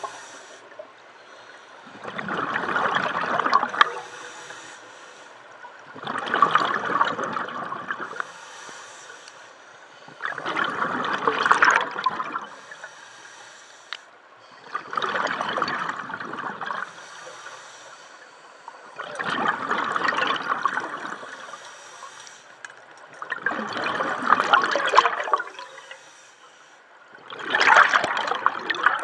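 Scuba diver breathing through a regulator underwater: a bubbling rush of exhaled air about every four seconds, seven breaths in all, with quieter stretches of inhalation between them.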